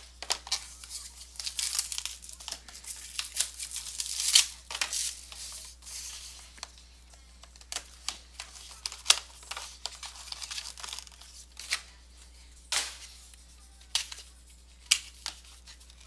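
A sealed trading-card box being opened by hand: plastic wrap slit and torn with crinkling, and sharp clicks and taps of cardboard as the box is handled. The crackle is densest in the first few seconds.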